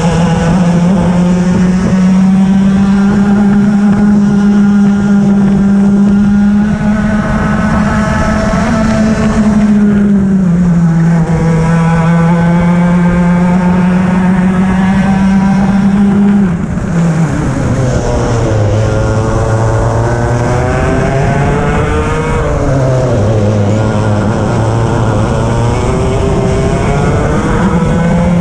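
On-board sound of a two-stroke racing kart's engine running hard at high revs under wind noise, the pitch dipping for corners: a slight dip about ten seconds in, then two deep drops under braking in the second half, each followed by the engine climbing back up.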